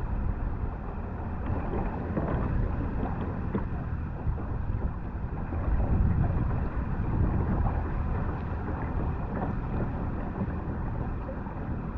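Steady low rushing of wind on the microphone and water as a motorized kayak moves along, swelling and easing a few times. A faint steady high whine runs underneath.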